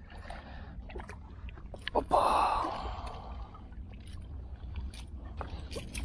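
Shallow seawater lapping and sloshing among shoreline rocks, with one louder splash about two seconds in and scattered light clicks.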